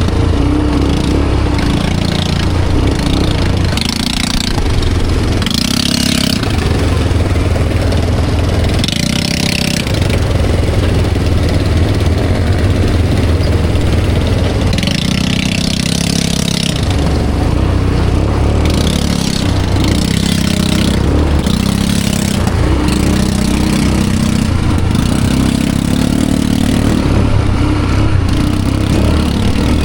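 ATV engine running as it is ridden, its pitch rising and falling with the throttle. Bursts of hiss come in every few seconds over the engine.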